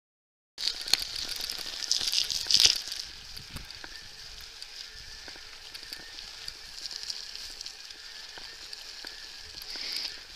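An electric mountain bike's tyres rolling over a dirt track: a steady crackling hiss with many small clicks and rattles. It cuts in suddenly just after the start and is loudest for the first couple of seconds.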